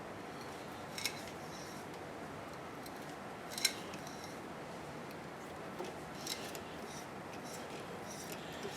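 A hand tap being worked through a 1/2-13 threaded hole with a tap wrench: a handful of sharp metallic clicks at irregular intervals, the loudest about three and a half seconds in, over a steady faint hiss.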